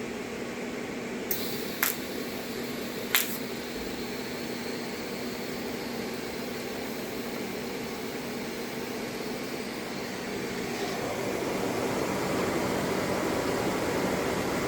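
Steady machine hum, like a cooling fan, with three sharp clicks in the first few seconds; the hum grows louder about ten seconds in.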